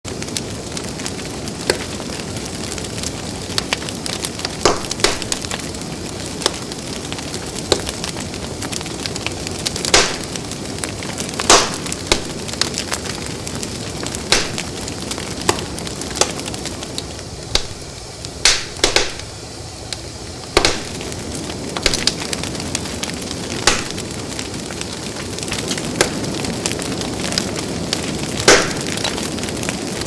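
Wood logs burning in a fireplace: a steady hiss of the fire with frequent sharp crackles and pops, and a handful of louder snaps scattered through.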